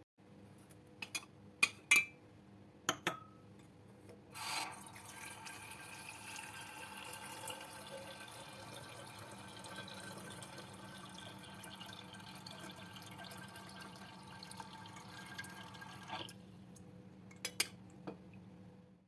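Water running steadily into a vessel for about twelve seconds, starting with a surge about four seconds in and stopping suddenly. A few sharp clinks of glass or dishware come before it and two more near the end.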